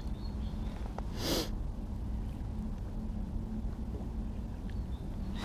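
A hooked asp splashing once at the water's surface about a second in, a short sharp splash, over a steady low rumble.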